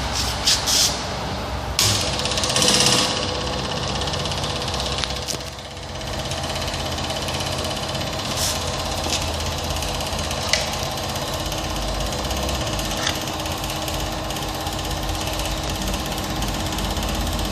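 Small electric pump running steadily, sucking coffee-stained water through a diesel fuel filter and out a hose into a plastic bottle. A few short, sharp clicks sound over the steady run.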